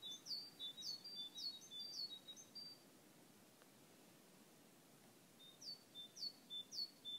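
Faint small bird chirping repeatedly, short chirps falling quickly in pitch at about three a second, in two bouts separated by a pause of about three seconds.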